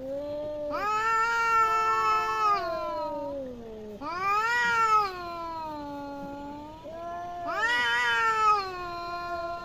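Domestic cats caterwauling in an aggressive fight standoff: long, wavering yowls that rise and fall in pitch, swelling three times about three seconds apart.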